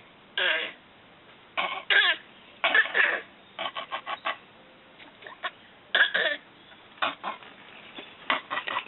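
A baby's fake coughs: short, forced coughs in about seven bursts, some running into quick strings of small coughs, a few ending in a falling voiced note.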